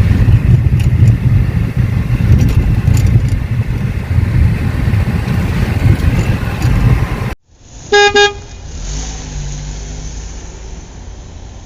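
Loud, steady low rumble of road traffic and engines that stops abruptly about seven seconds in. Then a car horn gives two short, loud toots in quick succession, followed by quieter traffic noise.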